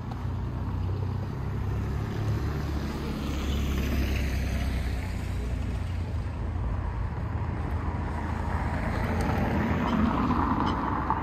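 Street traffic: a steady low rumble with two swells of engine and tyre noise as vehicles pass, one about four seconds in and a louder one near the end.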